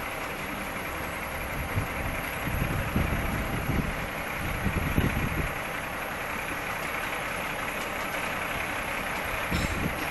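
Heavy truck's diesel engine idling, with a few louder low surges about a third of the way in and again near the end, over a steady hiss.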